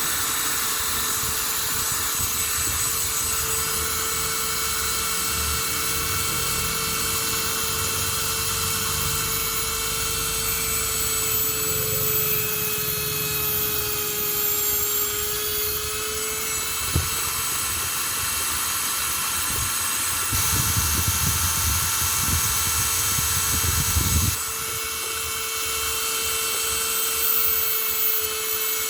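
A small electric motor whining steadily, its pitch sagging slightly midway, over low rubbing and handling noise, with one sharp knock partway through.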